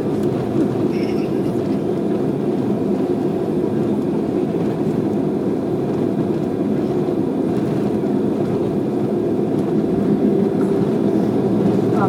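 Steady rumble of a jet airliner heard from inside the cabin as it rolls out after landing, spoilers up, engine and undercarriage noise running together as the aircraft slows.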